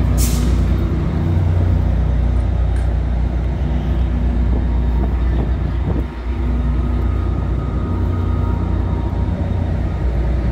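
Diesel commuter-train locomotives idling at close range: a loud, steady low engine drone. A brief hiss sounds right at the start.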